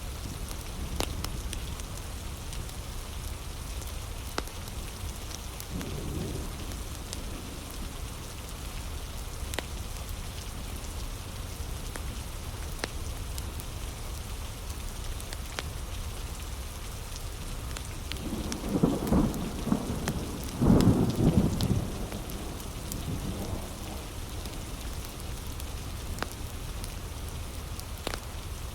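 Heavy rain falling steadily, with the sharp crackles and pops of a wood fire scattered throughout. About two-thirds of the way in, thunder rumbles for a few seconds, with a fainter rumble earlier on.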